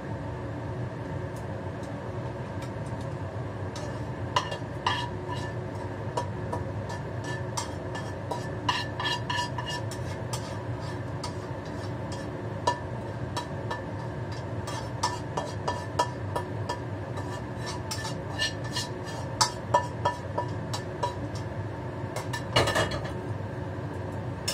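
A utensil scraping and tapping against a nonstick frying pan as a stir-fry is pushed out onto a plate: irregular clicks and scrapes starting a few seconds in, with the loudest clatter near the end. Under it runs the steady hum of the stove's range hood fan.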